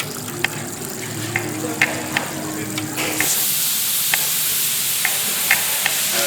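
Food sizzling in a pan, with light clinks of a utensil against the pan every half second or so; the steady frying hiss grows louder about three seconds in.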